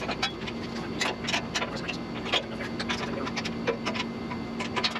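Irregular sharp clicks and light clinks, several a second and unevenly spaced, from hand tools and metal parts being handled while a stump grinder is assembled, over a faint steady low hum.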